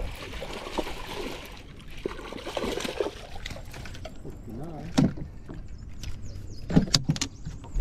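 A hooked smallmouth bass splashing and thrashing at the surface, then a few sharp knocks as it is swung aboard and lands in the boat.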